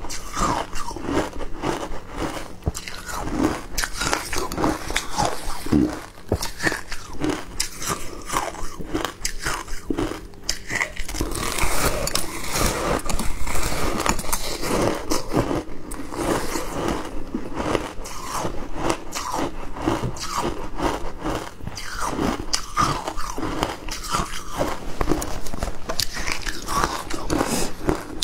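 A block of frosty shaved ice, dipped in passion fruit pulp, being bitten and chewed: a dense run of crisp crunches and crackles, loudest around the middle.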